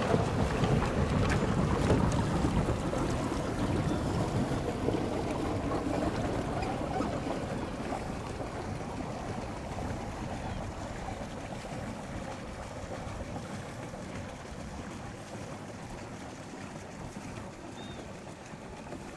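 Pedal boat's paddle wheel churning the water, with wind on the microphone; the splashing fades steadily as the boat moves away.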